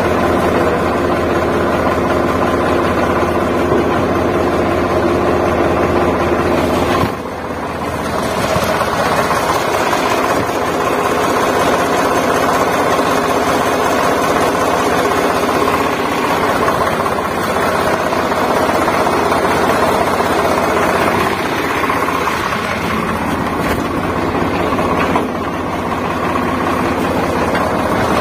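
Small electric gear motors of a wired remote-control toy excavator whirring steadily as it works its arm and bucket. The whir drops briefly about seven seconds in and again near the end.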